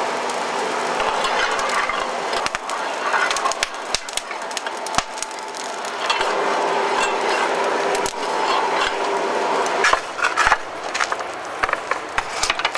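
Coal forge fire burning hard under forced air, a steady rush with many sharp crackles and pops from the burning coal.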